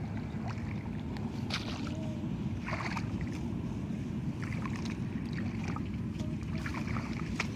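Small boat engine running steadily as a low rumble, with a few short sharp knocks over it.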